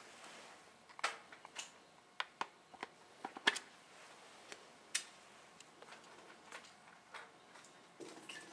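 Faint room tone with scattered light clicks and taps, a dozen or so, mostly in the first five seconds and sparser after that.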